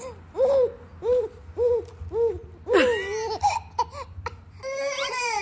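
Baby laughing: a run of short, evenly spaced laughs about two a second, then a longer, louder laugh.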